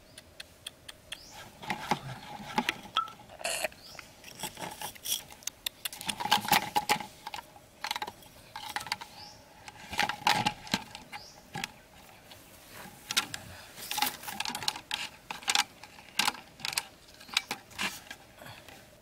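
Irregular clicks, taps and crinkling of a plastic bottle and bamboo sticks being handled and fitted together, with a few louder bursts around the middle.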